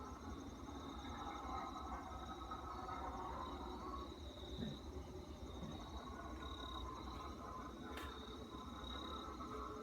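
Night insects, crickets, trilling steadily in a high pulsing chirr. Under it runs a fainter wavering mid-pitched drone that swells and fades, and there is one sharp click about eight seconds in.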